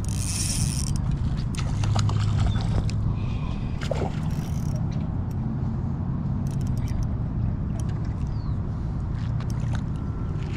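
A hooked trout thrashing and splashing at the surface on a bent spinning rod, with bursts of splashing about a second in and again around the middle, over a steady low rumble.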